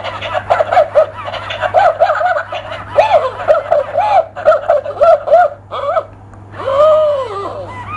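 Interactive plush toy dog's built-in speaker playing recorded puppy yaps in quick runs, with one longer drawn-out yelp near the end. A steady low hum runs underneath.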